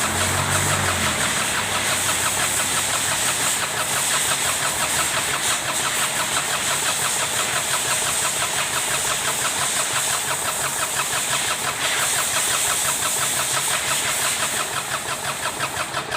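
Kubota D1462 three-cylinder diesel engine of a Sunshine L1-255 tractor running steadily on test after a valve-seat and piston-ring overhaul. Near the end its sound turns to a slower, more pulsing beat.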